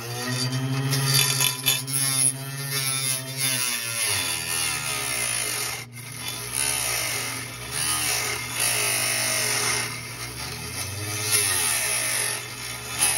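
Small electric cutting tool whining as its blade cuts plastic. The tone holds steady for the first few seconds, then drops and wavers as the cut loads the blade and slows it.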